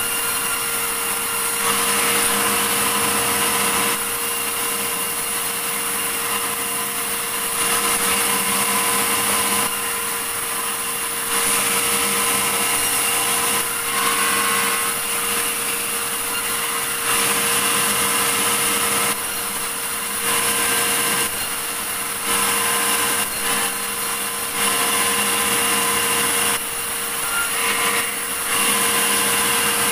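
Sawmill saw running and cutting through a large medang log, a steady machine hum underneath, with the cutting noise getting louder and softer every second or two.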